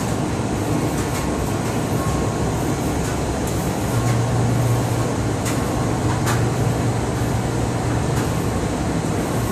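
Front-loading washing machine running the start of a quick-wash cycle, its drum turning the wet clothes with water sloshing inside. Under it is a steady low mechanical hum that grows stronger about four seconds in.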